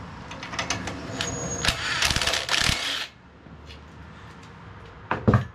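Metal hand tools clicking and rattling against a valve spring and retainer on a Tecumseh OHV cylinder head as a homemade flat-bar spring compressor is worked, with the keepers being seated. The clatter is densest about two seconds in, goes quieter, and ends with two sharp clicks near the end.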